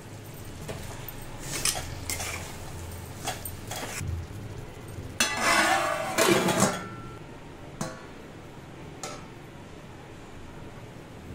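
Steel spoon clinking and scraping against a steel kadai, then a stainless steel plate set down over the pan as a lid with a loud metal clatter and scrape about five seconds in, ringing briefly.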